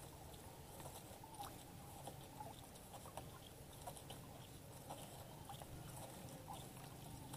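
Near quiet: faint, scattered small ticks and clicks a few times a second over a low steady hum.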